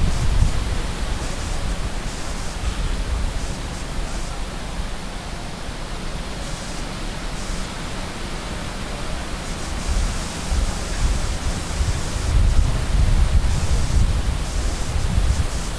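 A 7¼-inch gauge miniature steam locomotive hauling a train of riders approaches along the track, heard as a rumbling noise that grows louder over the last few seconds, over steady wind noise on the microphone.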